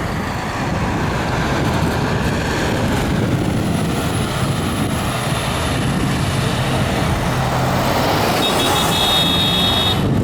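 Steady road traffic noise with wind rumble on the microphone while riding among cars, and a brief high-pitched tone near the end.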